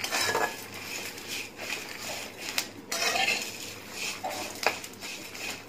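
Spatula stirring and scraping a kadai full of roasting curry leaves, dried red chillies and lentils, with irregular clinks of the spatula against the pan.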